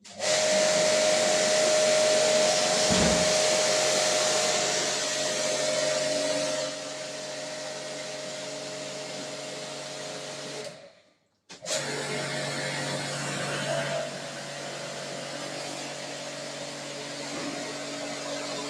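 Electric jet pump (high-pressure washer) running with a steady motor whine and a loud hiss. It gets quieter about six seconds in, stops briefly near the middle, then runs on.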